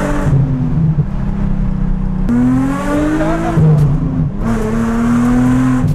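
Nissan 350Z's naturally aspirated 3.5-litre V6 accelerating hard, heard from inside the cabin. The engine note climbs, falls back twice as gears change, and climbs again each time.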